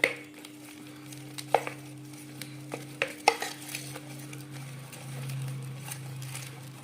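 Ghee being rubbed and stirred with water in a metal plate during hand-washing of the ghee: a soft swishing scrape with a few sharp clicks of metal. A steady low hum runs underneath.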